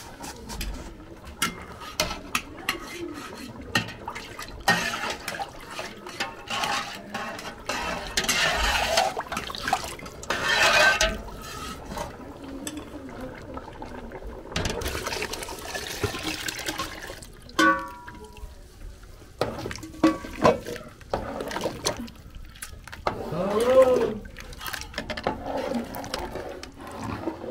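A thin curd mixture being poured and ladled in metal cooking pots, sloshing in several stretches, with clinks of a metal ladle and spoon against the pots.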